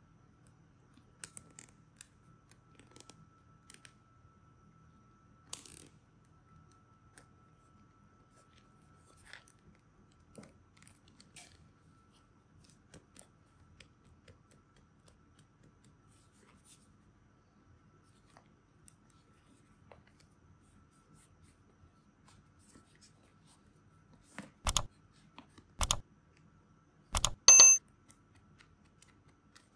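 Plastic toy figures handled by hand: faint taps and rubs for the first half, then four short, loud squeaky rubs near the end, the last with a high squeal.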